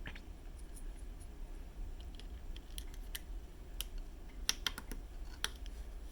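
Small, sharp plastic clicks and taps as a 3D-printed Alps keyboard switch stem is worked into a keycap's snap-in clips by hand, with a quick cluster of clicks about four and a half seconds in. The stem does not fully snap home, though it grips.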